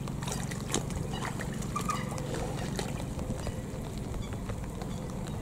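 A recorded bird-lure call playing from a loudspeaker: a fast, steady, low pulsing. Scattered light clicks and rustles in the first three seconds come from handling the mist net.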